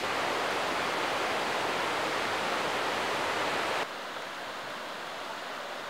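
Steady rush of cascading white water from a mountain creek and waterfall. A little under four seconds in it drops suddenly to a quieter rush.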